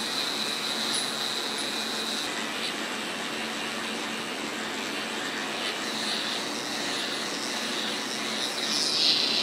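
Dremel rotary tool running at high speed with a small bit, deburring an edge of a steel trigger guard: a steady high whine over a grinding hiss, the whine fading after about two seconds and coming back stronger near the end.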